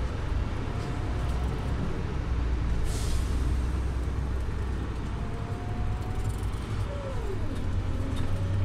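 Scania OmniLink city bus running with a steady low engine rumble, and a short burst of compressed-air hiss from the brakes about three seconds in. A brief falling tone comes near the end.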